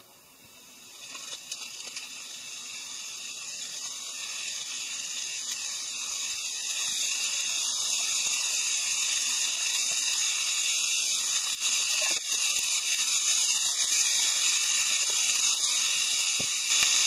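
Carrot, burdock root, lotus root and soybeans sizzling in oil in a frying pan, the sizzle building up steadily from near silence as the oil heats. A few light spatula clicks in the second half as the vegetables are stirred.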